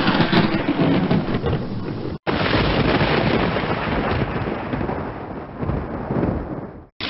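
Thunderstorm sound effect: a crack of thunder rolling into a rumble, cut off abruptly about two seconds in, then a second long stretch of rolling thunder with a rain hiss that swells near the end and cuts off suddenly.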